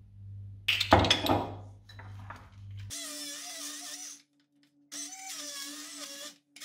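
A glassy clatter about a second in, then a hand-held immersion blender running from about three seconds in, cutting out briefly and starting again. It is blending basil, nuts, cheese and extra olive oil into pesto, the oil added because the mix was too dry to blend.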